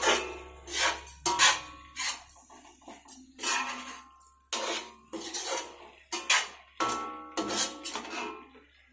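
A spatula scraping and knocking against a kadhai while stir-frying macaroni, in repeated irregular strokes a little over one a second. Each stroke leaves a brief metallic ring.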